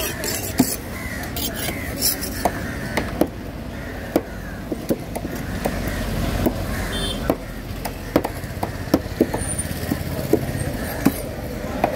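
Large knife working on a diamond trevally on a wooden cutting block: irregular sharp knocks of the blade against fish and wood. Road traffic runs underneath.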